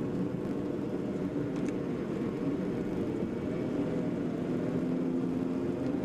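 Steady drone of engine and road noise heard from inside a moving vehicle, with a low engine hum that rises slightly in pitch midway.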